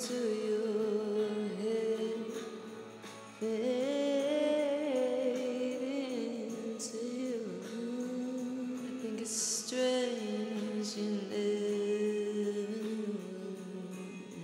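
Background music with a voice singing the melody.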